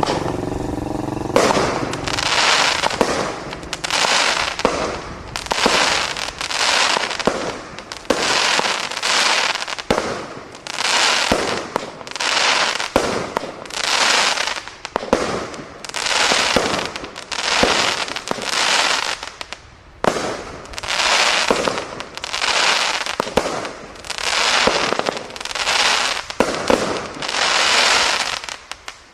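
A fireworks barrage cake firing about one shot a second, each shot a burst of noise lasting under a second. A brief whine comes at the very start.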